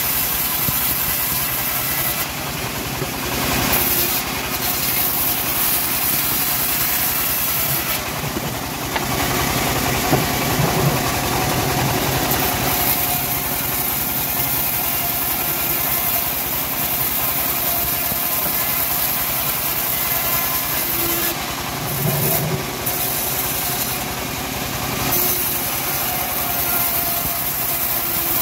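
Homemade band sawmill running steadily, its blade ripping lengthwise through a teak slab, with a continuous machine drone and small swells in the cutting noise.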